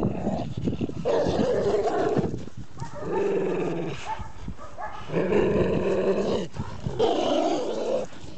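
Dogs growling in play while tugging on a stick: about four long, buzzing growls of a second or more each, with short breaks between them.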